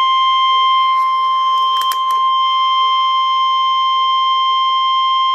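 NOAA Weather Radio's 1050 Hz warning alarm tone: one loud, steady, unbroken tone that signals a new warning about to be broadcast. A few faint clicks sound about two seconds in.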